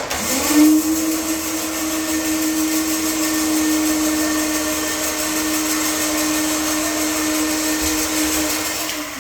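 Toro Titan Max zero-turn mower's engine running with a steady whine. It comes in suddenly, rises briefly in pitch at the start, then holds and fades near the end.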